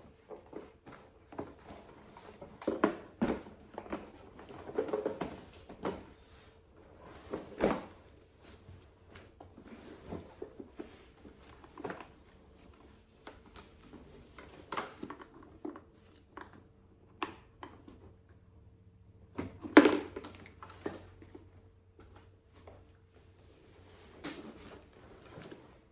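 Handling of a Nuna Pipa infant car seat: irregular knocks, clicks and rustles as its plastic shell and harness straps are worked by hand, the loudest knock about twenty seconds in.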